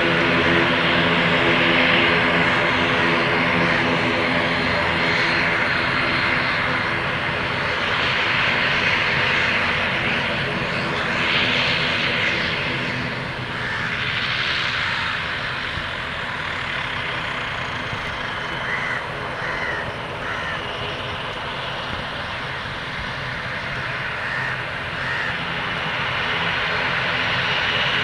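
ATR 72-600 turboprop airliner's two Pratt & Whitney PW127M engines and propellers running, a steady droning hum with an airy rush above it. The sound slowly falls off through the middle and grows louder again near the end.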